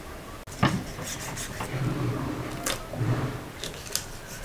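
Serrated knife cutting through a raw whole chicken on a wooden cutting board, the blade working through skin and joints with a few sharp, irregular clicks.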